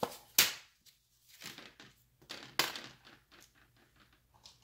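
Handling noise of a digital caliper and its hard plastic case as the caliper is taken out: a sharp click about half a second in, then softer knocks and rubbing.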